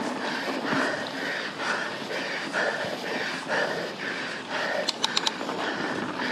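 A mountain biker's heavy, rapid breathing, about two breaths a second, over the steady rush of tyres rolling on a dirt trail, with a short cluster of sharp clicks about five seconds in.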